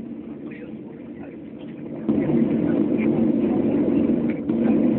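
Airliner cabin noise after landing: a steady low hum of the aircraft's engines and air system, which jumps louder suddenly about two seconds in, with faint passenger voices underneath.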